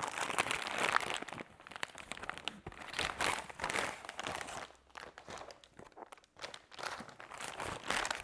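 Brown paper mailer bag crinkling and rustling in irregular bursts as it is opened and a boxed item is pulled out of it, loudest in the first second.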